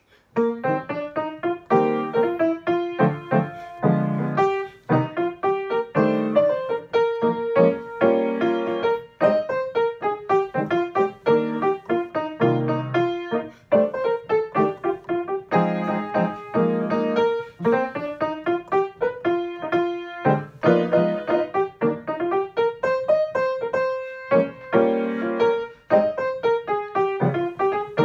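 Piano played briskly, a melody over chords, starting about half a second in.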